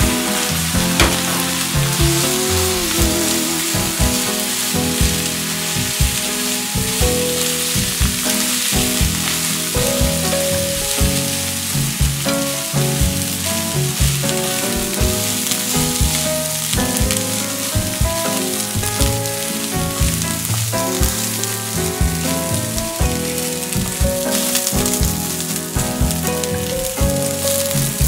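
Raw rice sizzling as it is fried in butter with chopped onion in a frying pan, stirred with chopsticks. Background music with a melody and a steady beat plays along.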